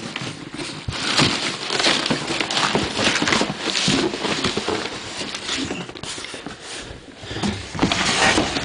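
Cardboard box being pulled open and handled: flaps scraping and rubbing against each other, with many short knocks and rustles throughout.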